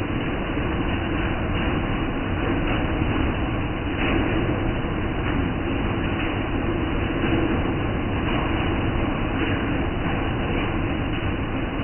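Diesel engine of a stationary tour bus idling with a steady, even rumble.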